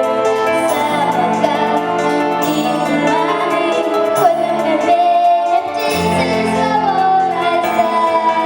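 A female voice singing long, held notes over instrumental accompaniment with a steady bass line.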